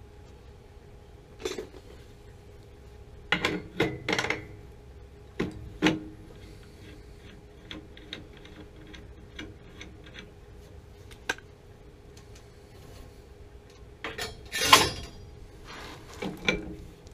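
Scattered metallic clicks, knocks and clinks of hand tools and fittings being handled at a gas water heater's Honeywell gas control valve as the gas is shut off, with a run of light ticks in the middle as the valve's control is worked. The loudest clatter comes near the end as a wrench is taken up, over a faint steady hum.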